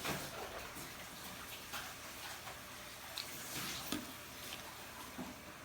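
Faint wet stirring and scraping of a homemade glue slime mixture being worked in a container, with a few soft clicks.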